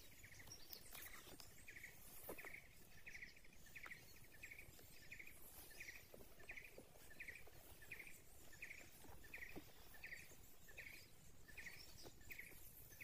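Near silence with faint, evenly repeated high chirps, about two to three a second, and a few soft clicks.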